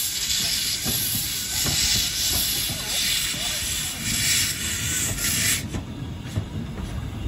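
Saddle-tank steam locomotive moving off with its cylinder drain cocks open: loud steam hissing that pulses with the engine's beats, then stops abruptly about three quarters of the way through, leaving the low rumble and clank of the engine on the rails.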